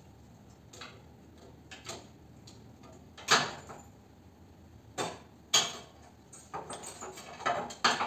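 Copper refrigerant tubing of an air conditioner's outdoor unit knocking and clanking as it is pulled and worked loose by hand: a loud knock about three seconds in, two more around five seconds, then a run of smaller knocks and rattles near the end.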